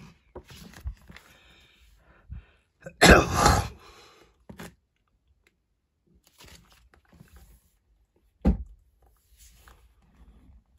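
Handling of a paper instruction booklet: pages turned and rustled, with a loud burst of noise nearly a second long about three seconds in and a short low thump about eight and a half seconds in.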